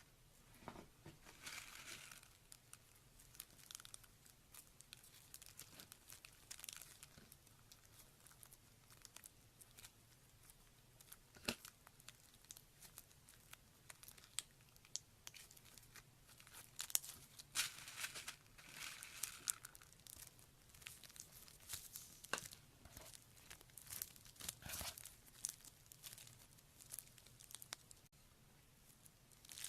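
Slime being squeezed and stretched by hand: quiet, irregular sticky crackles and pops in clusters, with a few sharper snaps.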